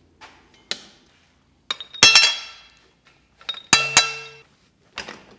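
Metal-on-metal clanks as a stuck bent steel tube is knocked and worked loose in a hydraulic tube bender. There are several sharp strikes: the loudest two pairs, about two and about four seconds in, ring on briefly like struck steel.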